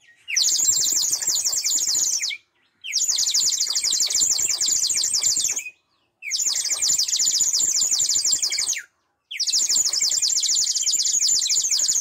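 Clay bird-shaped water whistle, filled with water, blown in four long breaths with short pauses between: each a high, rapidly warbling trill that sounds like many sparrows chirping together. The air and the water inside vibrate together to make the warble.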